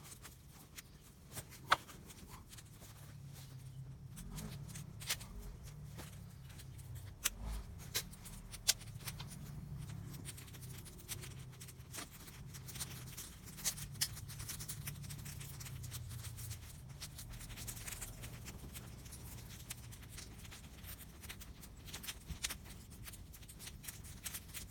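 Small campfire of thin sticks crackling, with scattered sharp pops at irregular intervals over a low steady rumble.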